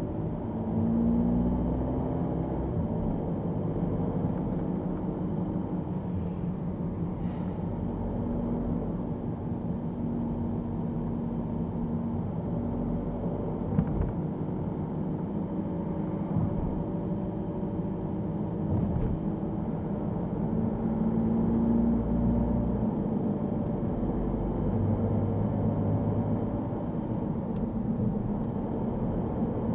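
Car driving along a road, heard from inside the cabin: a steady low rumble of engine and tyres as the car speeds up, its engine note shifting in steps. One sharp click about fourteen seconds in.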